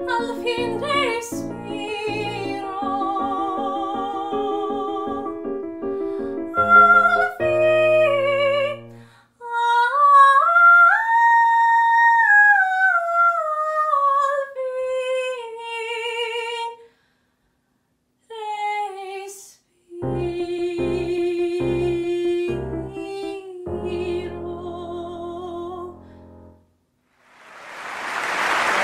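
A high female voice sings a classical-style song with vibrato over piano accompaniment, rising to a long high held note that slowly falls away. After two short pauses the piano plays closing chords, and applause starts near the end.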